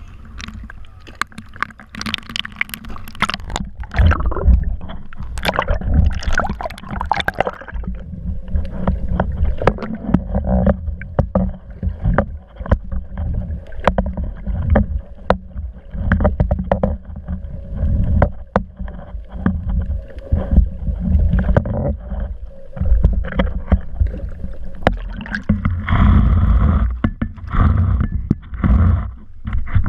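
Water sloshing and gurgling around a small boat, with scattered knocks and a steady low rumble.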